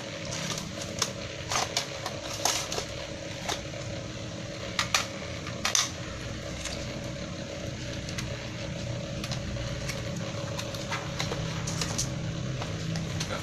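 Scattered clicks and taps from handling an Acer E5-471 laptop while its DVD drive is pulled out. They come thickest in the first six seconds, with one more near the end, over a steady background hum.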